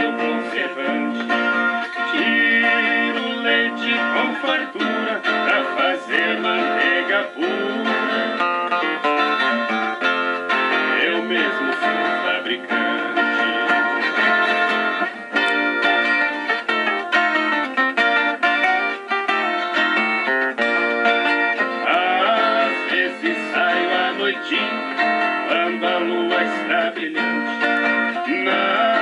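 Viola caipira and nylon-string acoustic guitar playing a sertanejo raiz moda, plucked and strummed together without a break.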